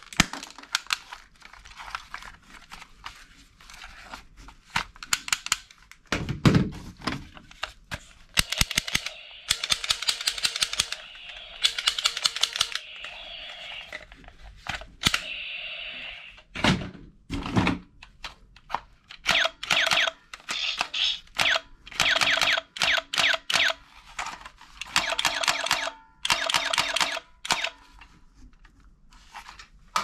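Plastic toy guns being handled and triggered: sharp plastic clicks and knocks, and several bursts of rapid rattling clatter, each a second to a few seconds long.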